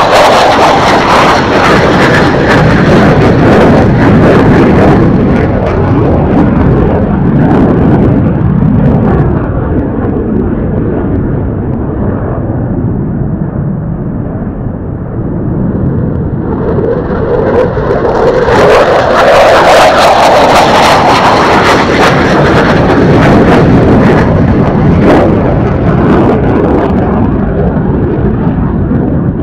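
Loud jet noise from an F-15J fighter's twin turbofan engines as one jet passes and fades over the first ten-odd seconds. About sixteen seconds in, the noise of another pass swells up and is loudest for several seconds with a ragged crackle, then eases slightly near the end.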